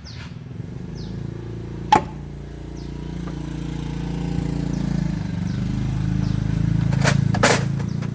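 A machine's motor running steadily and growing louder, with a sharp knock about two seconds in and two more close together near the end.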